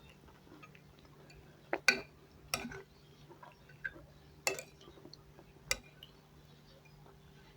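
Cutlery clinking against a plate while eating fish and macaroni: about six short, sharp clinks at irregular spacing, the loudest about two seconds in, over a faint steady hum.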